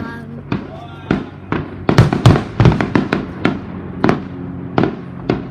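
Fireworks going off: a quick run of a dozen or so sharp bangs, thickest and loudest about two to three seconds in.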